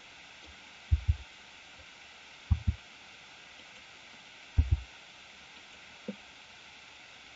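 Computer keyboard keys and mouse button pressed and released, heard as three pairs of short, dull low thumps and one fainter one near the end, over a steady faint hiss.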